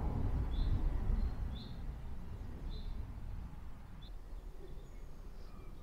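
A small bird chirping a short, high, repeated note about once a second, five times or so. Under it is a low rumble of background noise that eases after the first couple of seconds.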